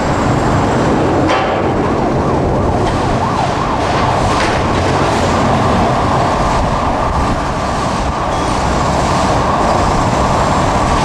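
A siren wailing over a steady low rumble of traffic.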